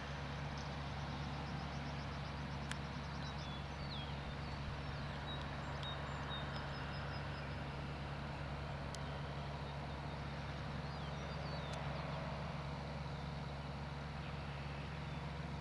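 A steady low engine drone that holds the same pitch throughout, with birds chirping here and there.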